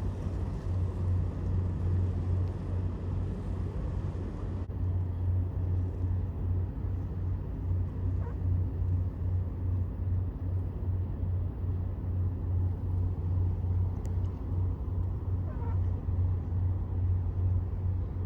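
Steady low engine rumble from a boat, with a constant deep drone and a rough noise above it.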